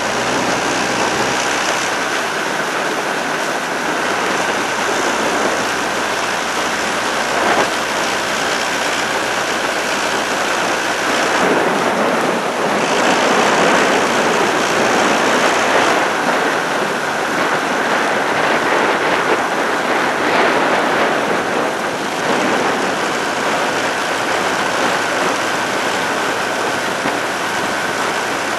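Steady rushing of wind and water past a moving motor launch, with the launch's motor giving a faint steady whine underneath.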